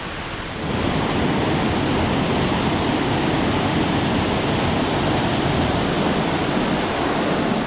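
Snowmelt waterfall rushing in a steady, dense roar that gets louder about a second in.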